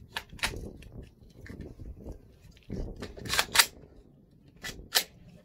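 Sharp metallic clicks and clacks of a PSA KS-47 rifle being handled as it is loaded, with a magazine being seated. They come in three pairs, the loudest pair about three and a half seconds in.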